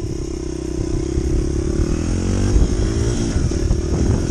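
Honda CRF100F dirt bike's single-cylinder four-stroke engine running under throttle, its note rising and falling about halfway through as the rider works the throttle.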